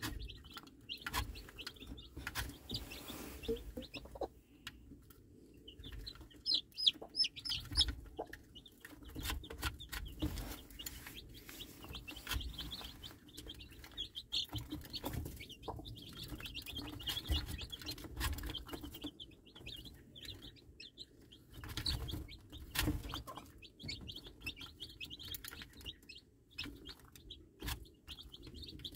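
A brood of young chicks peeping continuously with short high chirps while they feed, and a broody hen clucking low among them. Scattered sharp taps of beaks pecking at the feed and the plastic feeder.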